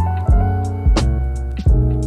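Background music with a steady drum beat and sustained chords.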